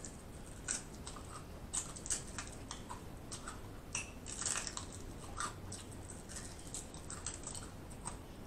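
Biting and chewing crisp fried chicken: irregular small crunches and wet mouth clicks, a few a second.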